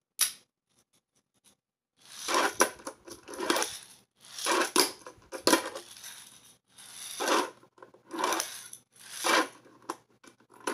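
Tech Deck fingerboard run by fingers along a ramp and a hard floor: its small wheels roll in short runs and the board clacks, about eight passes in a row after an opening click.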